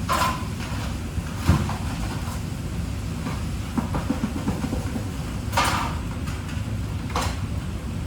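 Food-preparation sounds over a steady low rumble: several short scraping or rustling sounds and a single knock about a second and a half in.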